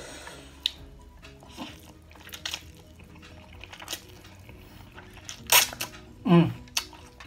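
A person slurping and eating fried noodles, with wet mouth sounds over soft background music. Two loud slurps come about five and a half and six and a half seconds in, the second ending in a short falling hum.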